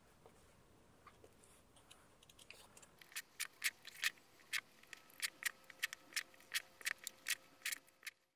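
Carving knife making short, crisp cuts into a wooden board, a quick series of snicks about three a second that begins about three seconds in and stops just before the end.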